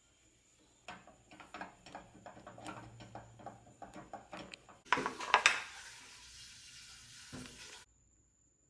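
Kitchen utensils clinking and tapping against dishes in an irregular run of light strikes, then a louder rough scraping burst about five seconds in that settles into a steady hiss and stops abruptly near the end.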